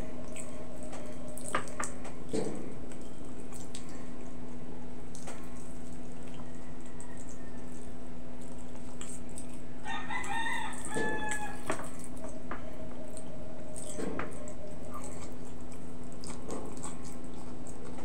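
A rooster crows once, about ten seconds in, a single call lasting about a second and a half, over a steady low hum. Soft clicks and smacks of eating by hand come and go.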